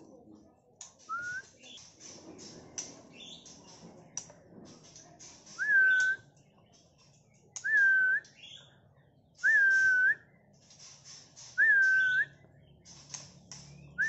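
A clear whistled note, rising and then held, repeated four times about two seconds apart from about a third of the way in, with short, sharp high chirps scattered throughout, around a caged white-rumped shama.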